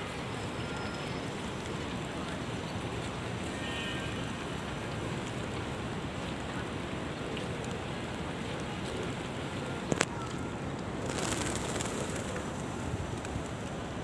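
Steady open-air noise around a large flock of feral pigeons on open pavement. A sharp double click comes about ten seconds in, and a brief rush of noise lasting about a second follows.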